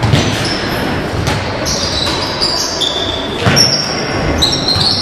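Basketball play on a gym court: sneakers squeaking in short high squeals on the floor and the ball bouncing a few times, in an echoing hall.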